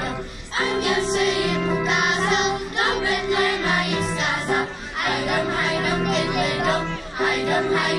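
Children's choir singing a song with keyboard accompaniment, amplified through a PA system; held notes change every second or so, with short breaks between phrases.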